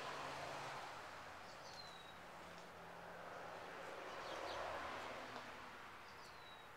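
Faint outdoor background noise, a steady hiss, with a few short, high bird chirps.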